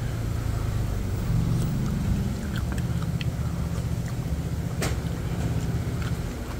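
A steady low motor hum, with light clicks of eating and utensils over it and one sharper click about five seconds in.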